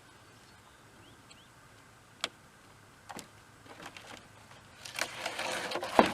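Pieces of sawmill wood knocking and clattering as they are thrown down off a wood pile: a few separate sharp knocks, then a busier clatter with one loud thud near the end.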